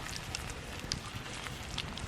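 Campfire crackling: a steady low hiss with a few sharp pops.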